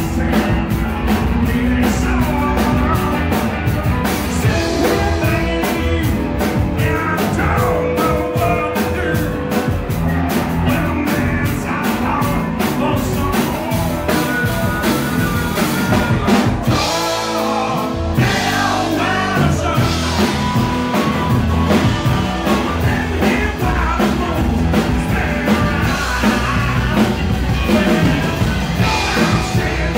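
Live blues-rock band playing: drum kit, electric guitars and bass under a blues harp (harmonica) lead. The low end drops out for a short break about seventeen seconds in.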